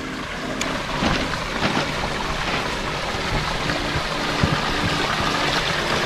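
Water running down a rocky stream and spilling over small waterfalls into a pond: a steady rushing splash, with a faint low hum that comes and goes underneath.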